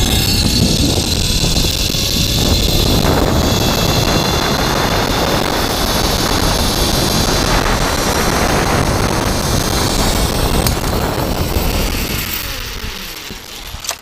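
Zip-line trolley running fast along the steel cable, with heavy wind rush on the microphone: a loud, steady rushing noise. It dies down over the last two seconds as the rider slows into the landing platform.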